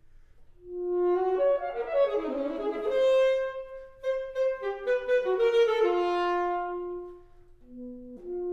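Alto saxophone playing a loud, fast concert passage. It enters after a short pause, plays quick runs of notes, then holds longer notes and drops away shortly before the end.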